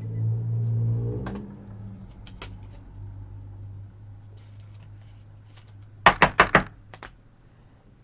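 Trading cards and their packaging being handled: a few light clicks, then a quick run of four sharp taps about six seconds in and two lighter ones after. A low hum runs underneath, louder in the first second.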